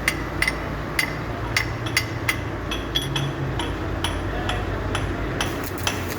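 Light hammer taps on metal, roughly two a second and a little irregular, each with a short metallic ring, over a steady low hum.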